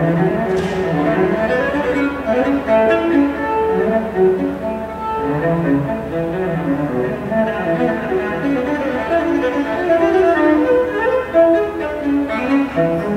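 Cello music: a quick, continuous run of bowed notes moving up and down in pitch.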